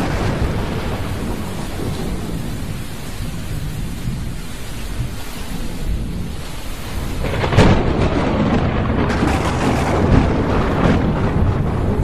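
Thunderstorm: steady rain with low rolling thunder, then a sudden loud thunderclap a little past halfway, followed by a crackling, rumbling roll that trails on.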